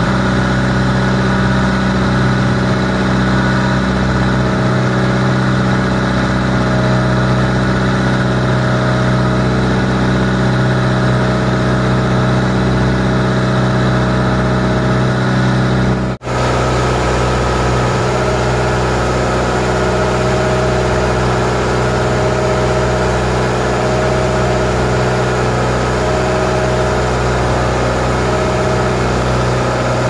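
Fishing boat's engine running steadily under way in a heavy sea, its drone over the rush of wind and water. A little past halfway the sound cuts briefly and comes back with a slightly different engine note.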